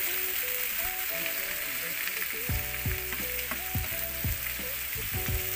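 Julienned squash, carrots and string beans sizzling in hot oil in a wok as a spatula stirs and tosses them. Soft background music with a low beat runs underneath.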